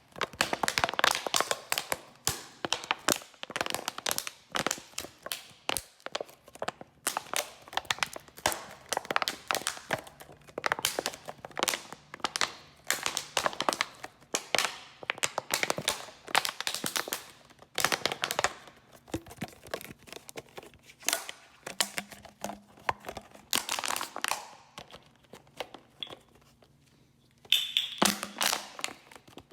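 A plastic bottle being squeezed and crumpled by hand: irregular runs of crackling clicks broken by short pauses.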